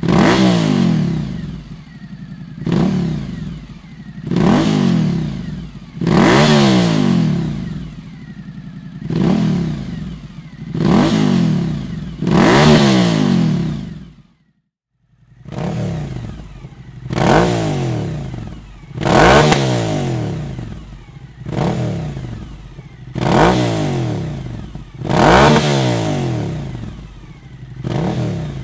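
Suzuki V-Strom 1050's V-twin engine, breathing through a Dominator aftermarket silencer, revved in short throttle blips about every two seconds: each one rises sharply and falls back towards idle. There is a brief break about halfway.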